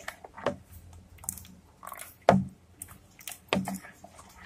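Steel spoon stirring thin ghevar batter in a plastic bowl: irregular clicks and scrapes of the spoon against the bowl, with wet squishing of the batter.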